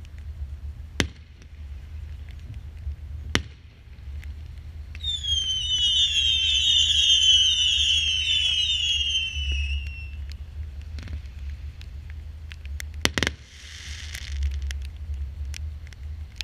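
Consumer fireworks battery firing: two sharp bangs, then a volley of many overlapping whistles, each falling in pitch, for about five seconds as the whistling shots rise. A sharp double bang comes near the end, followed by a brief hiss.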